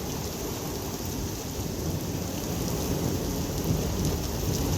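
Heavy rain pouring down with a steady low rumble of strong storm wind, the tail of the winds just after a tornado has passed.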